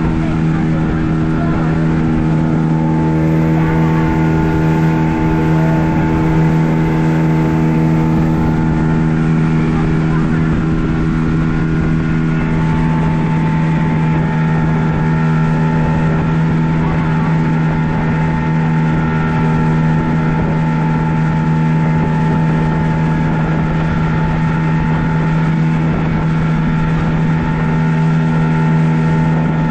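Outboard motor of a small passenger boat running steadily at speed: a loud, constant engine drone at one unchanging pitch over a rush of noise.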